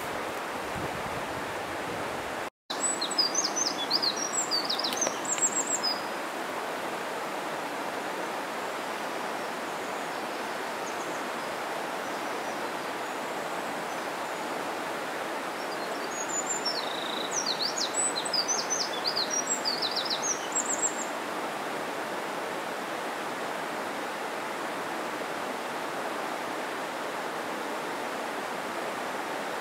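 Steady rush of a mountain stream, with a small bird singing two bursts of quick, high notes, about three seconds in and again about seventeen seconds in. The sound drops out for an instant just before the first song.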